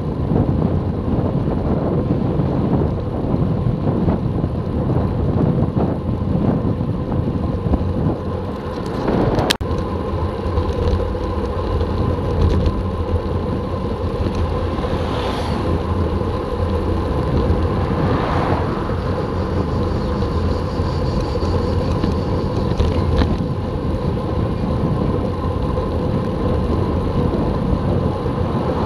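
Wind buffeting the microphone of a camera mounted on a moving road bicycle, a steady low rumble with road noise. One sharp click comes about nine and a half seconds in.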